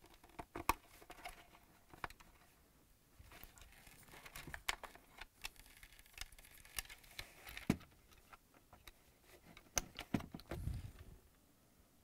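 Faint handling noise from plugging wire-harness connectors into a new refrigerator dispenser assembly: scattered sharp plastic clicks and rustling of wires against the plastic housing.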